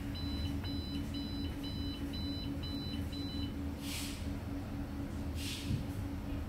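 A 3 kVA UPS's panel beeper beeping seven times, about two short high beeps a second, while its power button is held down, then stopping about three and a half seconds in. A steady low hum runs underneath, and two short hissing noises follow near the end.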